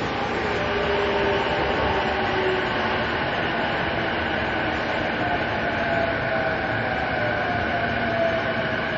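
Interior running sound of a JR East E233-2000 series electric train in a subway tunnel: a steady rush and rumble of wheels on rail. Through it runs the whine of the traction motors and inverter, which slowly falls in pitch in the second half.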